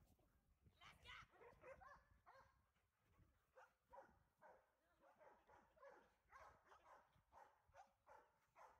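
Dogs barking and yipping faintly in short, irregular calls, a few a second, while playing and chasing each other.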